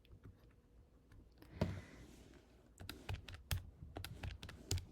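Keys being pressed: a single click a little over one and a half seconds in, then a run of quick, separate clicks in the second half, as a multiplication is keyed in.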